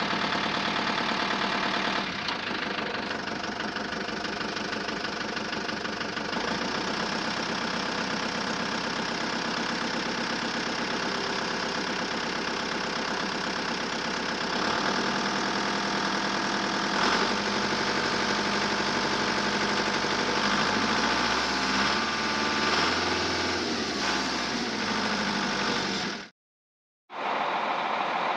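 Truck engine sound effect running steadily, its note shifting a few times; it drops out for a moment near the end and comes back.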